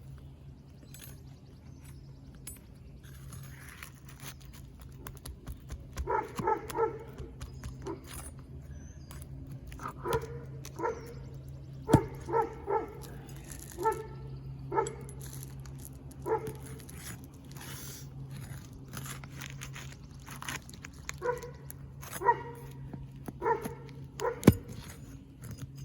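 A dog barking repeatedly in short runs of a few barks, over a steady low hum, with a couple of sharp clicks in between.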